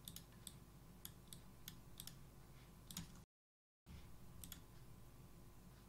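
Faint, scattered clicks of a computer keyboard and mouse over near silence, a few a second, with a brief drop to dead silence a little past halfway.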